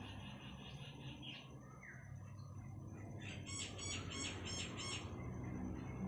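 Small bird calling: a quick run of high notes at the start, then, after about three seconds, a run of about six louder, evenly spaced chirps, over a steady low hum.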